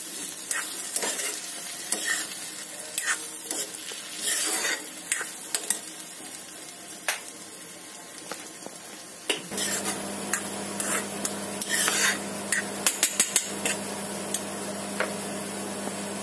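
Metal spoon stirring and scraping thick semolina halwa in a kadhai, with scattered clicks of the spoon against the pan over a light sizzle of hot ghee. From about nine seconds in, a steady low hum runs underneath, with a quick run of spoon clicks around thirteen seconds.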